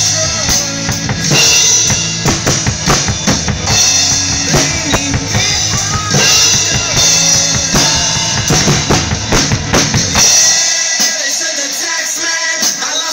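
Acoustic drum kit with Zildjian cymbals played hard along to a recorded rock song: kick, snare and cymbal hits over the full band. About ten seconds in the low end drops out, leaving a lighter part of the song.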